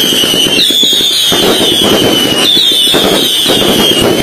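Fireworks going off: a dense crackle of many small pops under a high whistle that falls slightly in pitch, starting again about every two seconds.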